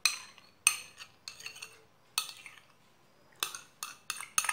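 A metal spoon clinking and scraping against a glass bowl as thick condensed milk is scraped out of it into a saucepan: a series of sharp, irregular clinks, coming faster near the end.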